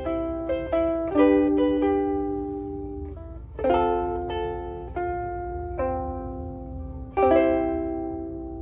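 Mahogany soprano ukulele (Blue Wing, serial #3) played by hand: strummed chords with single plucked notes between them. Each chord rings out and fades slowly, with really good sustain and resonance.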